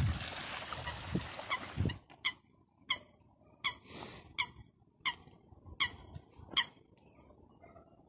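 Water splashing as Eurasian coots scuffle at the surface, then a series of about seven short, sharp, high calls, roughly one every three quarters of a second, before it goes quiet near the end.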